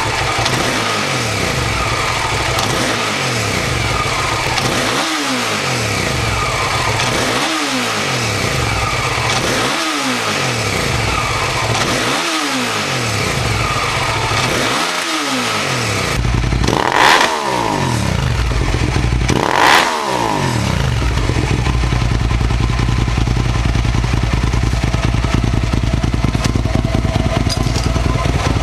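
Hyosung GT650R V-twin motorcycle engine idling and revved in even blips about every two and a half seconds, each rising and falling back to idle. About halfway through the sound changes, two sharper, louder revs follow, and the engine then idles steadily.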